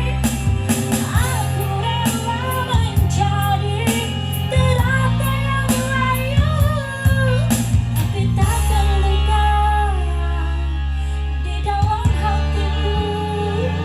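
A woman singing a slow, melodic song over backing music with sustained low chords and a light steady beat.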